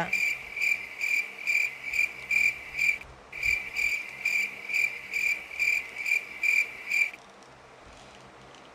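Cricket chirping steadily at about two chirps a second, with a short pause about three seconds in, then stopping about seven seconds in.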